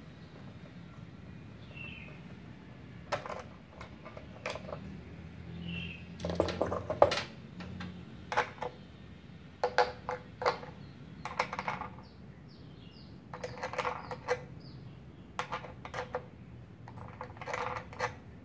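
Clicks, knocks and clatter of a spool of gasless flux-core welding wire being fitted onto the spindle in a MIG welder's wire compartment, coming in irregular bunches, loudest about seven seconds in.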